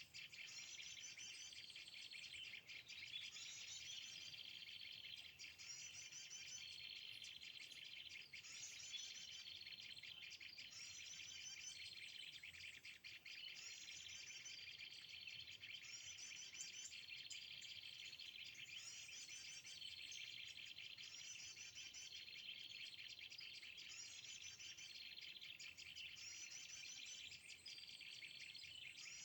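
A short, high bird-song phrase repeating at very even spacing, about every two and a half seconds, like a looped bird-call recording played from a phone speaker as a trapping lure, over a steady insect drone.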